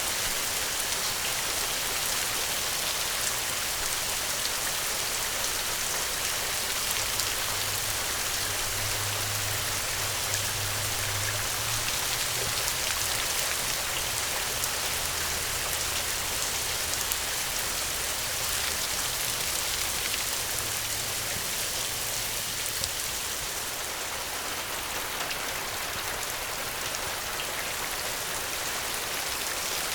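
Steady rainfall pattering densely on surfaces, an even hiss with many fine drop impacts. A faint low rumble comes and goes in the middle.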